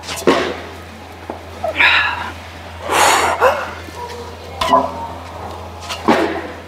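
A lifter's effort sounds as she presses a strongman log overhead: several short grunts and hard, forceful breaths, one burst with each drive and catch of the log.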